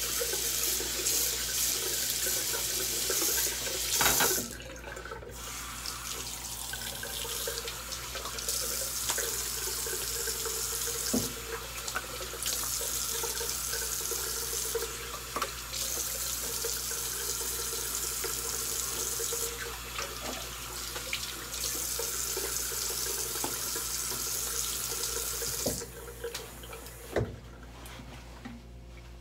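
Bathroom sink tap running, with water splashing as a face is rinsed with cupped hands. The running water stops about 26 seconds in, followed shortly by a single knock.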